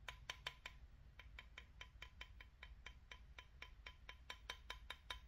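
Faint, rapid light tapping, about six taps a second, some with a slight ring: a small tray being tapped to shake powdery flour gold into a glass bottle.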